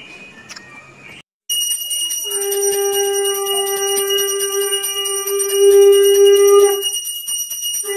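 Brass puja hand bell rung rapidly and continuously during an aarti. A loud steady held note sounds over the bell, breaks off near the end and then starts again.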